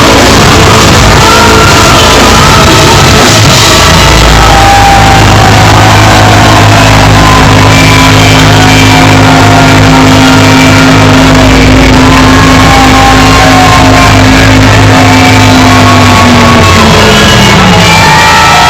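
Live heavy metal band playing loud, with vocals over distorted guitars and drums; a long held low note slides down in pitch near the end. The recording is overloaded and rough.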